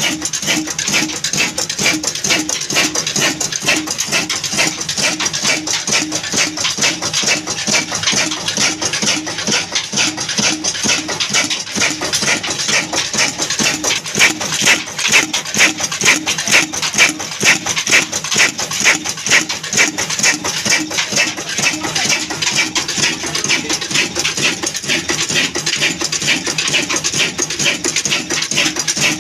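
Old black stationary diesel engine running steadily, with a fast, even mechanical clatter.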